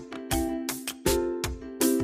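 Instrumental background music with a steady beat, a new chord struck about every three quarters of a second.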